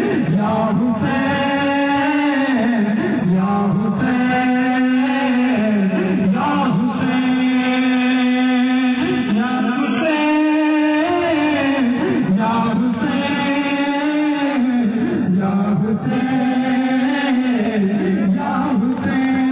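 A man's voice chanting a noha, a Muharram lament for Imam Husain, into a microphone. It comes in long held phrases that drop in pitch at the end of each.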